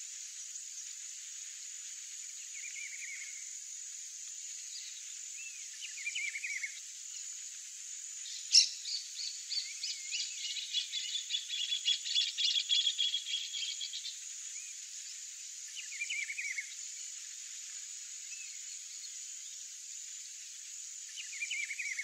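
Wild forest ambience: a steady high insect drone with short chirping calls every few seconds. About eight seconds in a sharp click is followed by a rapid run of pulsed calls lasting about five seconds, the loudest part.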